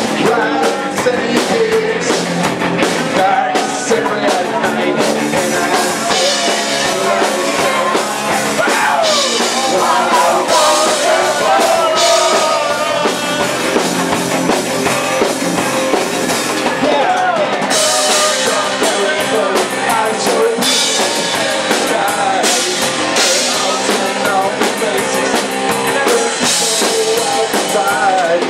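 Live punk rock band playing: fast drum kit, distorted guitars and bass, with a lead vocal singing over them.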